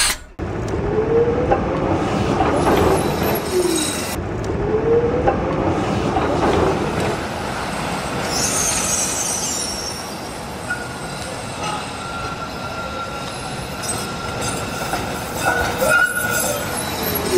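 Tram running on rails, a steady rumble with its wheels squealing on the curves: a few short squeals, a higher screech about eight seconds in, and a long thin squeal later on.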